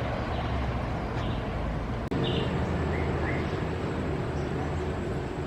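Steady low background rumble of outdoor ambience, with a few short, high bird chirps between about two and three and a half seconds in.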